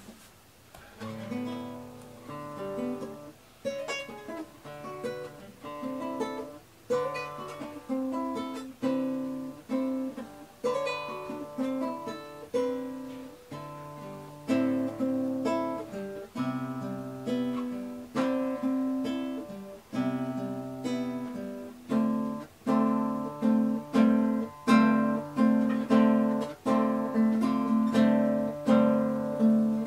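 Background music: an acoustic guitar playing a gentle tune in plucked and strummed notes, growing louder about halfway through.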